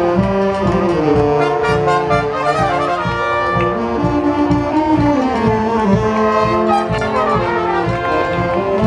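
Street brass band (xaranga) playing a lively marching tune: trumpets and trombones carrying the melody over a steady beat.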